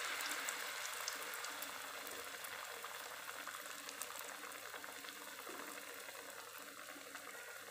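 Potato pinwheel samosas deep-frying in hot oil: a steady sizzle sprinkled with tiny crackling pops, slowly growing quieter.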